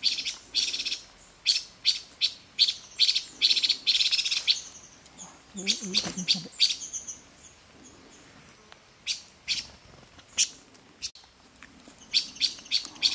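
Silver-eared mesia giving harsh scolding calls: quick runs of rasping notes with pauses between, a long run at the start, shorter bursts about six seconds in and near the end, and a few single notes in between.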